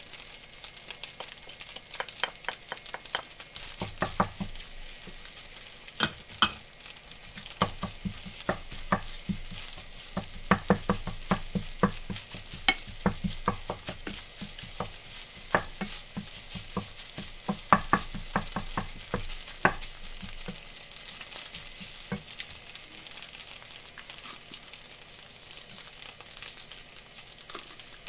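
Egg fried rice sizzling in a frying pan while a wooden spatula stirs and tosses it, knocking and scraping against the pan in quick clusters. The knocks thin out about two-thirds of the way through, leaving the steady sizzle.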